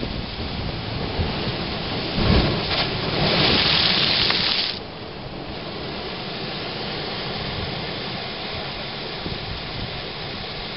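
Sea blowhole in a'a lava: a low boom about two seconds in, then a loud rushing hiss of water and air that lasts about two seconds and stops abruptly, over the steady wash of surf.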